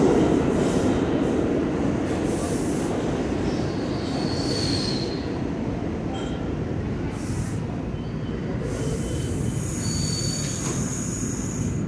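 New York City subway trains rumbling in an underground station. The rumble is loud at first and fades over the first couple of seconds, then settles lower. Thin, high-pitched wheel squeals come in about four to five seconds in and again from about nine and a half seconds on.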